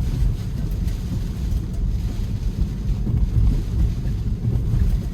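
Steady low rumble of a Tesla driving on wet roads in a rainstorm: tyre and wind noise, with no engine sound.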